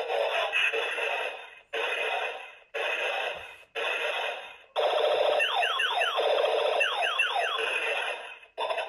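Battery-powered toy pistol's electronic sound effects through its small speaker: four short bursts about a second apart, then a longer one of nearly four seconds with a string of quick falling tones.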